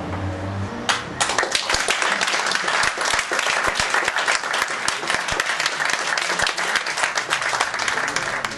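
A small audience applauding, the clapping starting about a second in and going on steadily.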